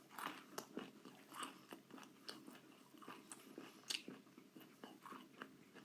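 A person chewing a mouthful of chicken nugget close to the microphone: faint, irregular soft clicks and wet mouth noises, several a second.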